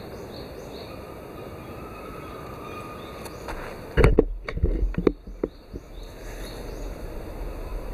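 Steady background hiss, then about four seconds in a cluster of loud, dull thumps and a low rumble from a handheld camera being handled and moved.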